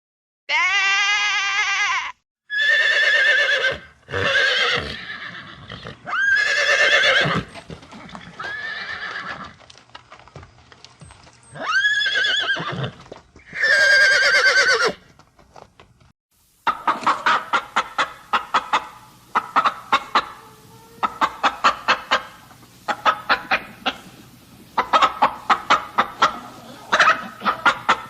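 A sheep bleats once. Then about six short calls from another farm animal follow, each rising in pitch at the start. From a little past halfway, chickens cluck in quick, rapid bursts.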